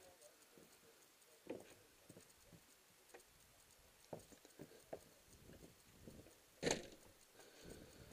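Faint, unevenly spaced footsteps knocking on wooden plank boards, with one louder knock about six and a half seconds in.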